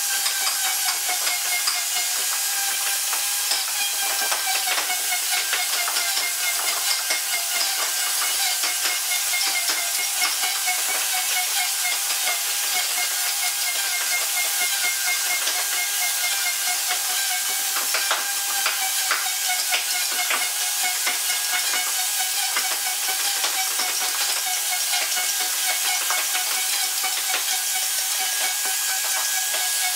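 Maktec MT362 electric plunge router running steadily at high speed, a high whine over a rushing hiss, as its bit cuts into a wooden board.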